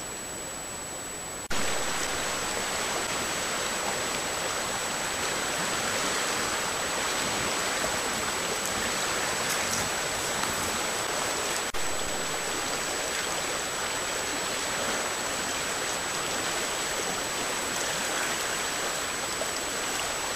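Steady rush of flowing creek water, an even noise with no distinct events, picked up by a trail camera's microphone. A thin, constant high whine runs under it. The noise jumps louder about a second and a half in and breaks off briefly near twelve seconds.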